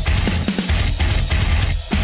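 Loud, aggressive heavy-metal-style background music, with brief stops about a second apart.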